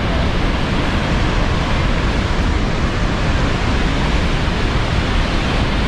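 Steady, loud rush of falling water from Niagara's Bridal Veil Falls, a large waterfall crashing onto the rocks, with no breaks or changes.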